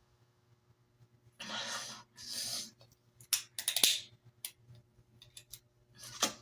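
A person breathing heavily, two long breaths about a second and a half and two and a half seconds in, followed by a quick run of small clicks and taps.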